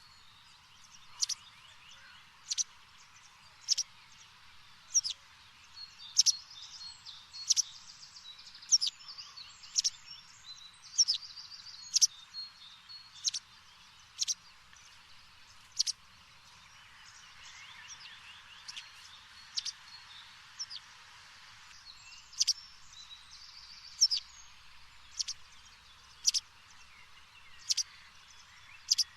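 Small birds chirping and twittering over a light hiss, with a sharp tick about every second and a quarter.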